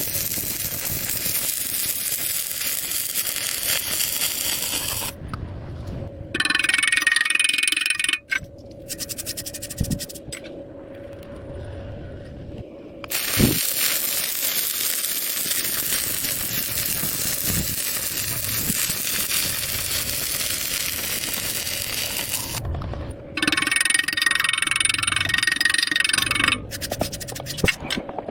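Arc welding on a steel pipe joint: a steady crackling hiss that stops and restarts several times, with short pauses and a sharp knock between runs.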